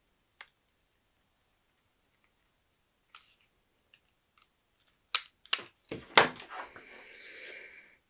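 Knife working on a cable's insulation: a few light clicks and taps, then three sharp clicks a little after five seconds in, followed by a steady scraping that runs through the last second and a half.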